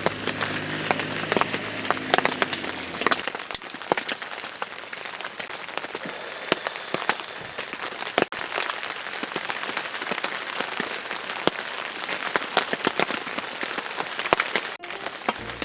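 Wood campfire crackling and popping: dense, irregular sharp snaps over a soft hiss.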